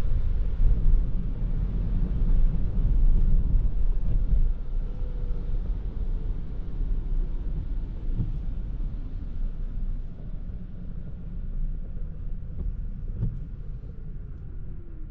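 Toyota Prius α driving on a wet road: steady low road and tyre rumble that eases off over the second half, with a faint falling whine twice.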